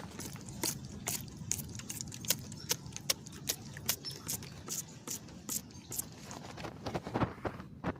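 Hand sprayer squirting neem oil onto zucchini leaves in quick short hisses, about four a second.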